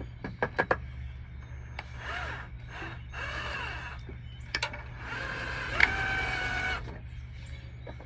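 Cordless power drill run in short bursts, its motor whine rising and falling, while fitting a security camera mount. Several sharp clicks come near the start, and a steadier run of about a second and a half comes past the middle, over a low steady hum.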